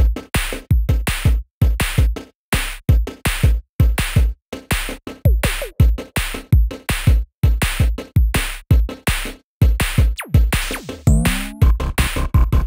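Electronic music with a punchy drum-machine beat and deep kick drums, stopping and starting in short bursts, with a rising synth sweep about eleven seconds in.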